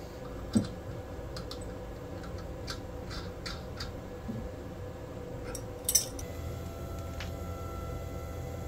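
Light clicks and taps from small hard objects being handled, with two sharper knocks, about half a second in and near six seconds, over a steady hum. After the second knock a faint higher tone comes and goes.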